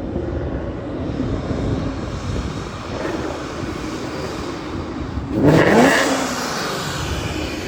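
Ford Mustang's aftermarket exhaust rumbling, then one short rev about five and a half seconds in, rising in pitch and the loudest moment, before settling back.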